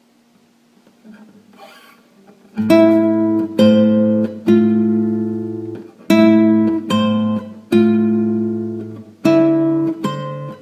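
Solo acoustic guitar playing slow struck chords, each ringing out and fading before the next. The chords begin about two and a half seconds in, after a faint, quiet start.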